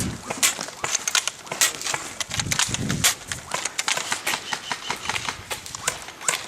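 Airsoft guns firing: a quick, irregular string of sharp clicks and snapping pops.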